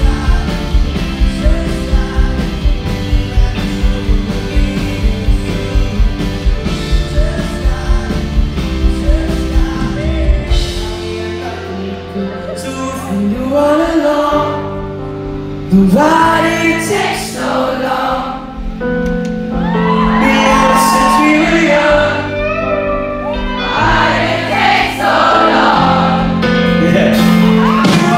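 Live pop song: a man singing over a Rhodes electric piano. A band's steady drum beat runs for about the first ten seconds, then drops away to keys and voice.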